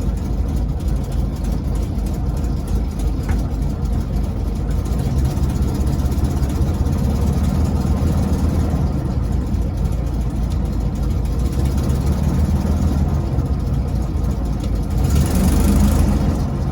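1968 VW Baja Bug's engine idling in neutral with the clutch engaged, with a steady low-toned noise from the transmission that the owner takes for a damaged bearing. A brief louder rushing sound comes near the end.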